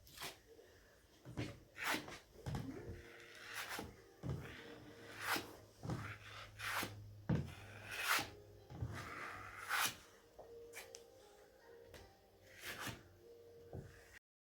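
Filling knife spreading and scraping filler over a mesh-taped ceiling crack, making irregular scrapes and taps about once a second as the second coat goes on.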